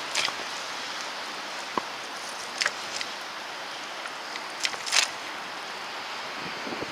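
Steady outdoor hiss, typical of wind and wet traffic noise in a snowstorm, broken by a few short sharp clicks in the middle.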